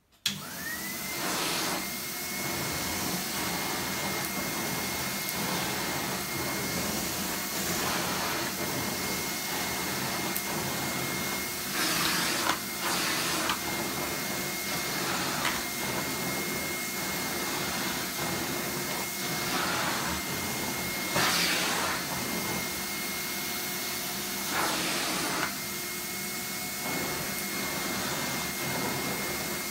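Kerstar KV/10 commercial tub vacuum cleaner switched on with a click, its motor spinning up to a steady high whine within about a second, then running steadily. The floor tool is pushed over a thick shag rug, with a few brief louder rushes of suction along the way.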